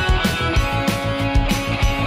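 Rock music with guitar over a steady, quick drum beat.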